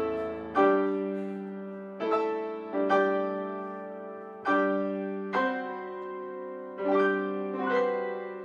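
Grand piano playing a slow series of chords, about seven of them, each struck and left to ring and fade before the next.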